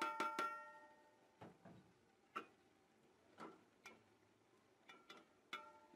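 Metal ladle clinking and knocking against an aluminium cooking pot while stirring thick minced-meat curry: a quick run of ringing clinks at the start, then single knocks roughly once a second.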